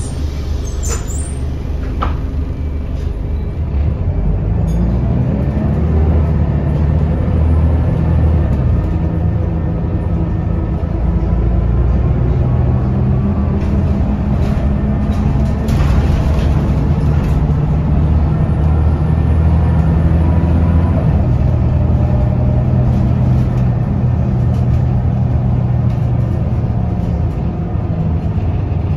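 Scania L94UB city bus's diesel engine with ZF automatic gearbox, heard from inside the passenger saloon. A few clicks in the first couple of seconds, then the engine revs rise about four seconds in as the bus accelerates. The pitch drops around twenty seconds in, as at a gear change, before the engine settles into a steady drone.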